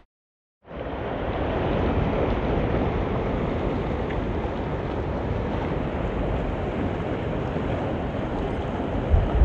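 Steady rushing of shallow river rapids, starting abruptly about half a second in, with a low rumble of wind on the microphone. Two short low thumps near the end are the loudest moments.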